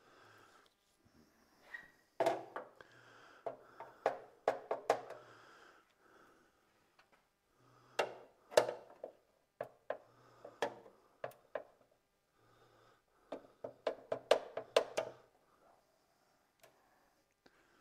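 Sharp metal taps and clanks on a steel breaker panel enclosure, in three bursts of rapid strikes, as knockouts are worked out of the box.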